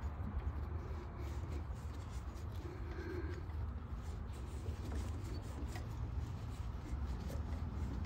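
Sandpaper rubbing around a copper refrigerant line of an AC condenser, a continuous scratchy rubbing made of short strokes. The copper is being sanded clean so the tubing-cutter cut will be clean and no debris goes into the line.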